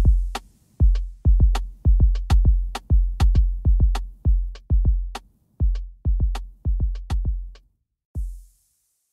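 Lofi hip-hop drum beat: deep kick drums with sharp snare-like hits over them, at a little under three hits a second. It thins out and stops about eight and a half seconds in, with a short hiss just before the end: the track finishing.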